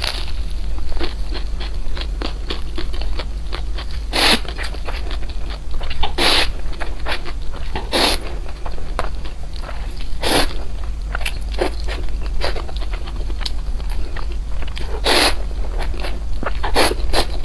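Close-up eating sounds: steady chewing with small wet clicks, and a louder crunchy bite every two seconds or so, about seven in all.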